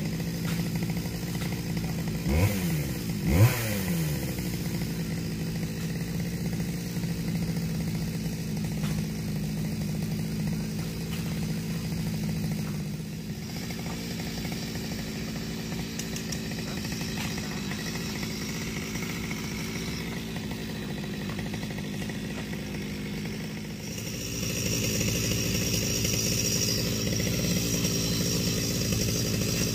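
Two-stroke chainsaw engine idling steadily, with two short, sharp revs a couple of seconds in. From about three-quarters of the way through it runs louder and brighter.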